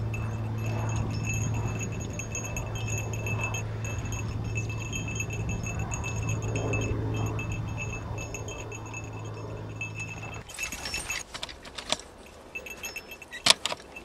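Light metallic jingling and clinking from a Belgian draft horse's harness chains and the horse-drawn field implement it pulls, over a steady low hum. About ten seconds in the hum stops and a run of sharp metal clanks and knocks follows, the loudest near the end.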